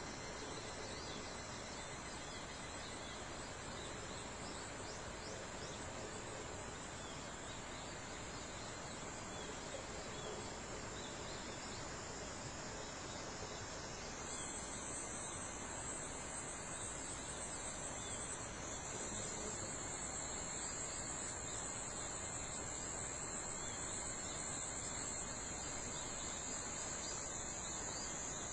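Forest insect chorus at summer dawn: a steady, high-pitched insect trill, with a second, louder high trill joining about halfway through, over faint background hiss.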